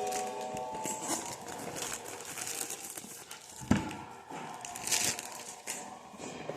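Packaging being handled during an unboxing: crinkling and rustling of wrapping, with one sharp knock a little past halfway.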